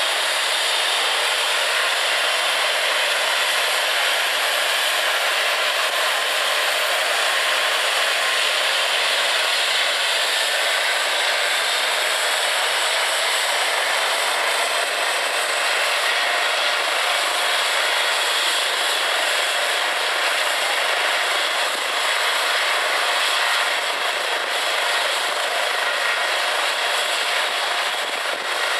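Eurocopter EC135 air ambulance helicopter with its turbine engines running, a steady loud rush with a high turbine whine that rises slowly in pitch over the first several seconds as the engines spool up.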